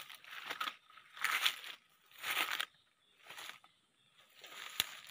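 Footsteps crunching through dry leaf litter, about one step a second, with a single sharp click near the end.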